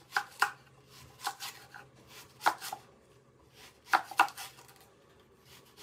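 Knife chopping an onion in a few irregular strokes, several coming in quick pairs.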